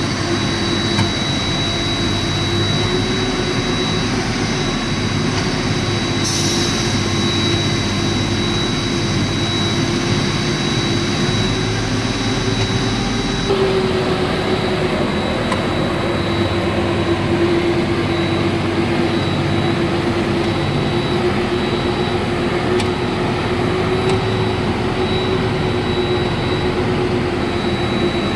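Heavy diesel engine running steadily with a constant hum and a high whine, first heard from inside a BharatBenz truck's cab. There is a short hiss about six seconds in, and the sound shifts slightly about halfway through.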